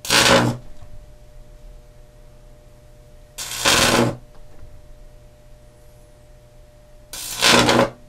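High-voltage output winding (about 2000 V) of a microwave oven transformer arcing through the air to a wire: three loud buzzing, crackling arcs, each about half a second long and roughly three and a half seconds apart, with a faint steady hum between them.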